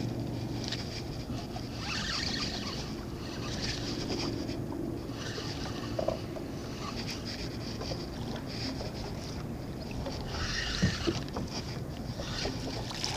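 Steady low rumble of wind and water around a small boat, with patches of higher hiss that come and go, while a spinning reel is cranked to bring in a small mangrove snapper.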